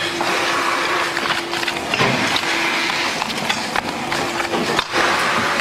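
Playing cards being rapidly handled and flicked through by hand, a papery rustling with many quick clicks, over steady workshop noise and a faint hum.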